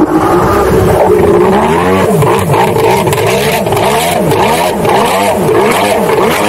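Kawasaki 1100cc two-stroke engine in a stand-up jet ski running hard and loud under acceleration. From about two seconds in, its pitch rises and falls again and again, about twice a second.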